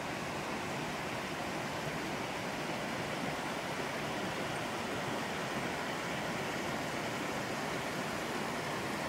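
Steady, even rushing noise with no separate events, like outdoor water or wind noise.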